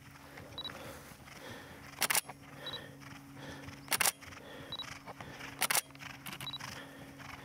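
Digital SLR camera shutter firing three times, about two seconds apart, with a short high beep before each shot.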